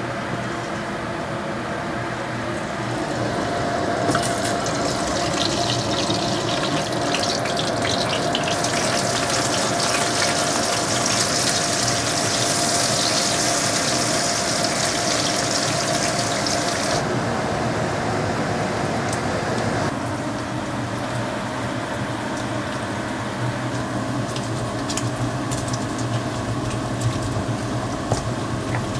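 Small dried anchovies sizzling as they fry in oil in a wok, the sizzle strongest in the middle, over a constant electric hum. Near the end, a stone pestle knocks and grinds in a stone mortar.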